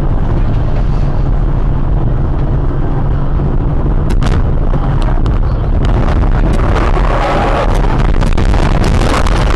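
Loud, distorted dash-cam audio: a steady low rumble from a car on the road. There are sharp bangs about four and five seconds in, and a cluster of bangs and cracks near the end.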